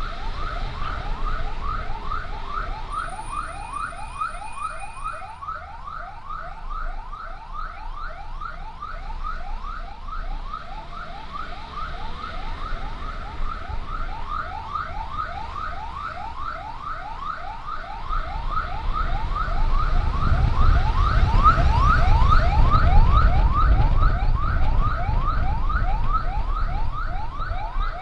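Emergency siren on yelp: a fast rising sweep repeated about three times a second. A low rumble grows louder about two-thirds of the way through.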